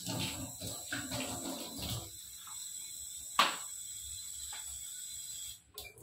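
Tap water running into a stainless steel sink and splashing over hands being rinsed, loudest in the first two seconds, with a steady high whine underneath. A single sharp knock sounds about three and a half seconds in.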